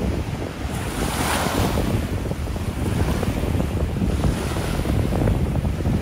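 Small ocean shore-break waves breaking and washing up the beach, with a surge of hiss about a second in and a weaker one later. Wind buffets the microphone with a steady low rumble underneath.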